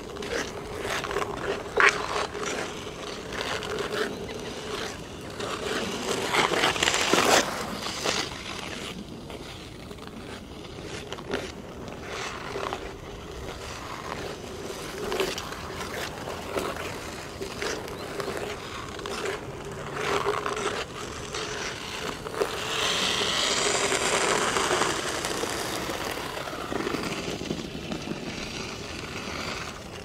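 Ice skate blades on hard natural black ice: strokes scraping and clicking as skaters glide past, with a steady hum underneath. Two louder passes swell and fade, about a quarter of the way in and again about three quarters of the way through.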